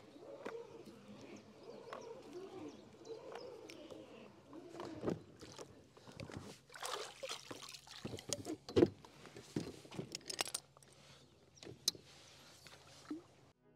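Anchor being hauled up by hand into a kayak: irregular knocks, rattles and rubbing against the hull, with bursts of water splashing and one sharp knock about nine seconds in, the loudest of them.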